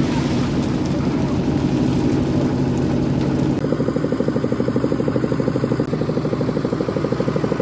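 An engine-driven machine running steadily; about three and a half seconds in its sound changes to a fast, even throbbing pulse.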